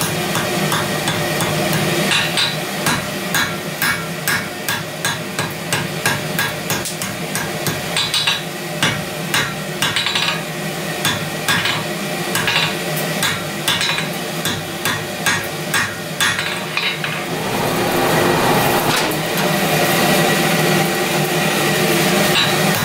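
Hand hammer striking red-hot steel bar stock on an anvil in a steady rhythm, about two to three blows a second, forging tong parts. A continuous hiss runs underneath; the blows stop for a few seconds near the end while the hiss gets louder.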